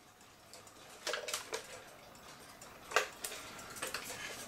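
A few light, irregular clicks and knocks from a wooden cuckoo clock being handled, the loudest about three seconds in.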